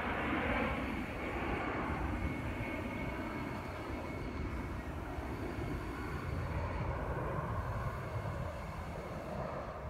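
Jet rumble of a pair of A-10 Warthogs' TF34 turbofan engines as the aircraft fly away, fading over the first couple of seconds and then carrying on more faintly and steadily, with a faint thin whine.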